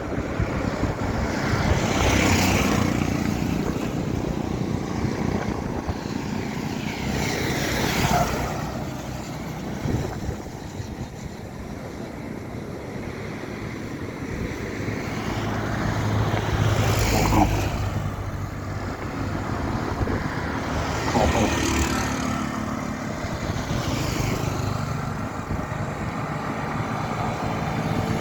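Road traffic passing on a bridge: a steady low rumble, with single vehicles rushing by every few seconds.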